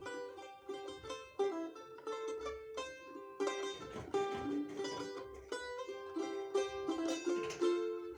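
Solo balalaika being played: a melody of plucked notes, with rapid strumming strokes in the second half.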